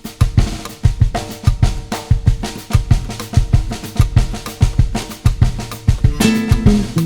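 Background music: a drum kit playing a fast, steady beat with bass drum and snare, over bass and guitar.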